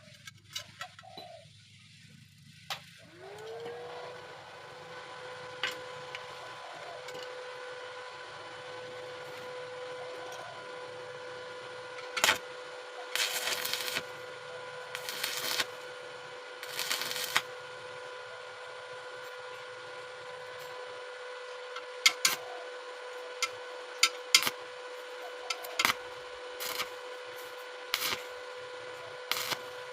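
An electric power tool's motor spins up about three seconds in and settles into a steady whine. Several brief scratchy bursts and scattered clicks come over it as the tool works against metal.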